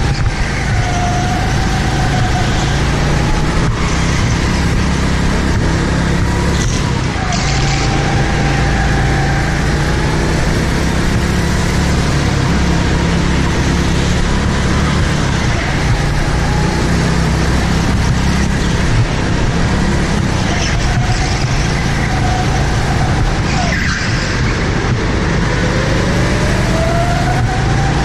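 Go-kart engine running at speed, heard from a camera mounted on the kart: a steady low rumble with a higher engine note that rises and falls through the corners, climbing near the end.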